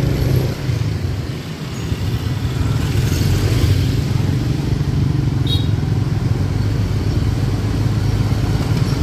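Motorbike engine running steadily under the rider at low town speed, with a steady low hum that eases off briefly about a second and a half in and then picks up again. A short high chirp comes about halfway through.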